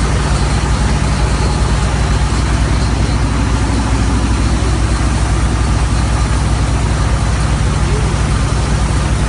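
Engine of an HF120W water well drilling rig running steadily as the rig drills, a constant low hum with no change in speed.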